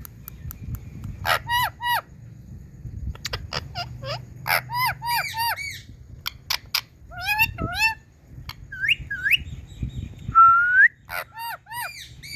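Indian ringneck parakeet calling: many short sharp calls, each rising then falling in pitch, in quick runs of two to four, with one longer rising whistle about ten seconds in.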